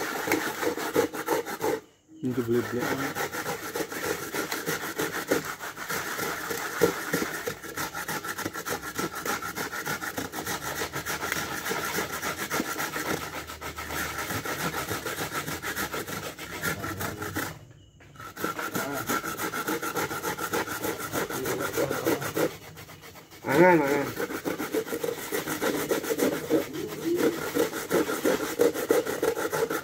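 Coconut being grated by hand on a wooden grater board standing in a metal pot: fast, continuous rasping strokes that pause briefly about two seconds in, again around eighteen seconds and around twenty-three seconds.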